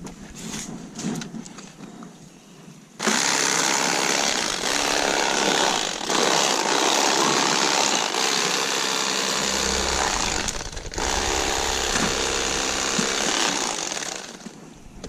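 Electric fillet knife switched on about three seconds in, its motor buzzing steadily as the blades cut through a crappie, dipping briefly once and stopping near the end. Before it starts there are only light handling clicks.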